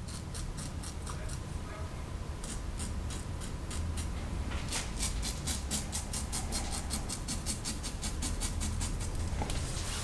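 Merkur 34C closed-comb double-edge safety razor with a Treet Carbon blade scraping stubble on the upper lip in short strokes, a run of quick rasping clicks that come thicker and faster about halfway through.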